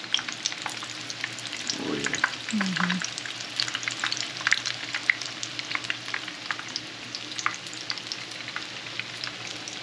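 Cassava mince balls shallow-frying in sunflower oil in a nonstick pan: a steady sizzle dotted with many small crackles and pops.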